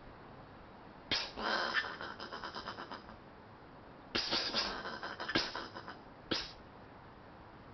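Angry Australian possum calling: two harsh, raspy calls, each starting with a loud burst and trailing off into rapid stuttering pulses of about eight a second, then a short third burst near the end.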